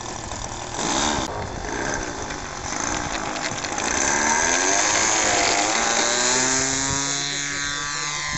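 Radio-controlled model airplane's small engine running up to full throttle for takeoff, a high buzzing drone. It gets loudest about four seconds in, its pitch rising and then bending up and down as the plane rolls out and climbs away.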